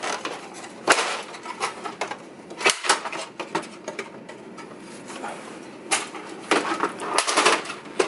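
Plastic outer housing of an Epson R3000 printer being pulled off its metal chassis: a series of sharp plastic clicks and knocks as the clips and panel edges let go, a few single ones and then a quicker cluster near the end.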